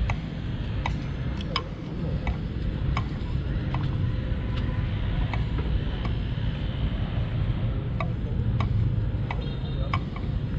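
Footsteps of someone walking along a dirt path: a light click about every three-quarters of a second over a steady low rumble.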